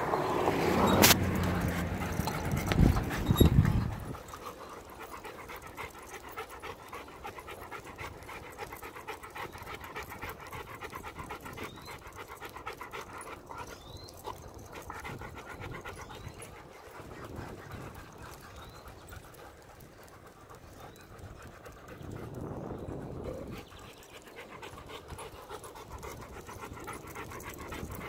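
A German Shepherd panting steadily as it runs beside the bicycle. For the first four seconds a louder vehicle engine rumbles close by, with a sharp click about a second in.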